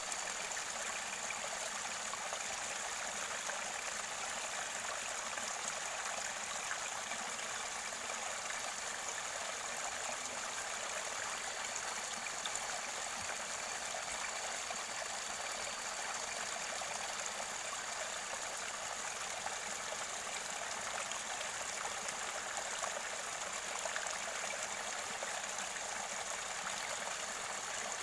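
Mountain river water near its source, flowing and gurgling steadily in a continuous rush.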